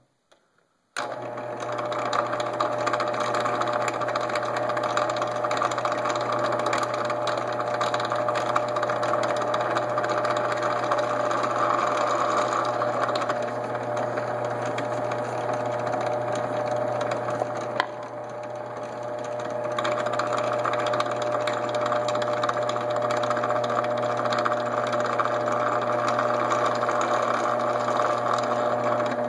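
Benchtop drill press motor running steadily while a small twist bit drills pilot holes into the end of a wooden dowel. It starts abruptly about a second in, and its level dips briefly and climbs back about 18 seconds in.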